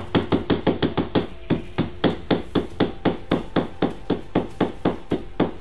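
Fabric-upholstered bus seat cushion being beaten in quick, even blows, about five a second, knocking clouds of dust out of the padding.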